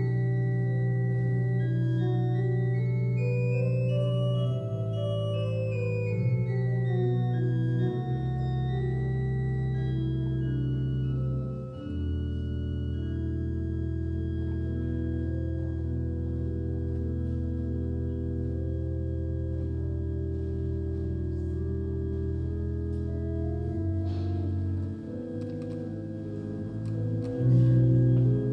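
Church organ playing slow, sustained music, with long-held low notes that change every few seconds under moving higher lines.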